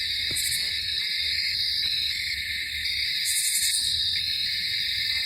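Night insect chorus, a steady high-pitched trilling drone, with a higher buzzing call standing out twice.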